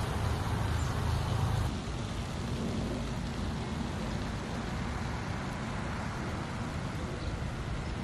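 Steady outdoor background noise with a low rumble and no distinct events.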